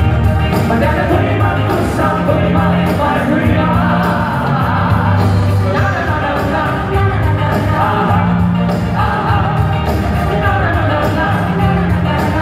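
A male and a female singer sing a pop ballad duet live, backed by a full band of drums, bass, electric guitar and keyboards, with backing singers.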